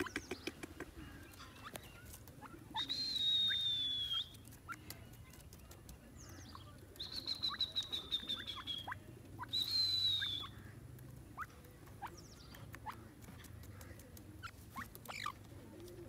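Grey francolin pecking at dry soil: a scattered patter of small clicks with short, soft downward chirps. Three long, high, slightly falling squealing whistles with a hiss behind them stand out as the loudest sounds: the first a few seconds in, two more close together past the middle.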